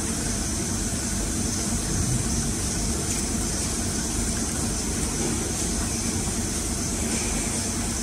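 Steady machine running noise: a low hum under an even hiss, unchanging throughout.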